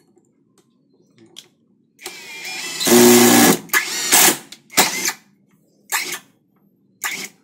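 A Mollar CIDR 20351 cordless impact driver drives a long screw into a wood block. It starts about two seconds in with a run of about a second and a half that grows loudest near its end. Then it gives four short bursts about a second apart as the trigger is pulsed.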